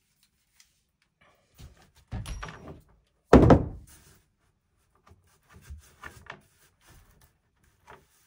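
Tool and lumber handling on a plywood floor: a short clatter about two seconds in, then one loud thunk as a cordless drill is set down on the boards, followed by a few light wooden knocks as a trim board is positioned.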